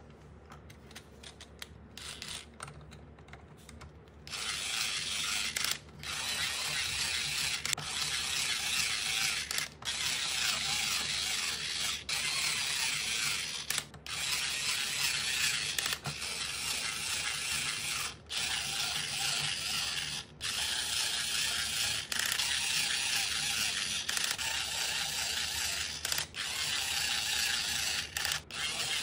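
A toy's mechanism ratcheting with rapid clicking, starting about four seconds in and running in stretches of about two seconds with short breaks between them.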